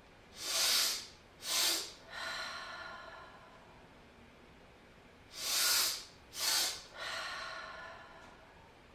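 A person doing two rounds of the physiological sigh (cyclic sighing): each round is a full inhale followed straight away by a shorter second inhale to top up the lungs, then a long, slower exhale that fades out. The two rounds start about five seconds apart, and the paired inhales are the loudest part of each.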